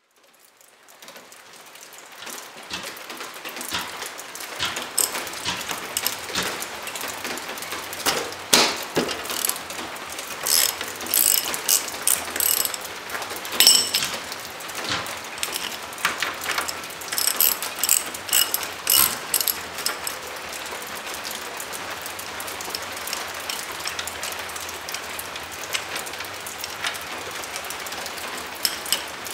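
Ratchet clicking and metal clinks at a dirt bike's rear axle as the axle nut is loosened and taken off, over a steady hiss. The clinks come thickest in the middle.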